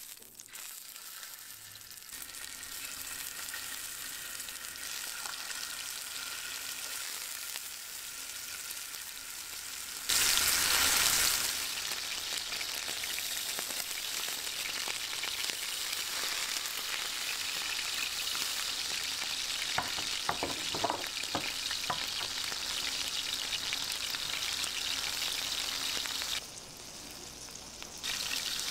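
Sliced steak sizzling and frying in very hot butter, a steady high hiss. About a third of the way in the sizzle surges louder for a second or so, and there are a few sharp crackles later on.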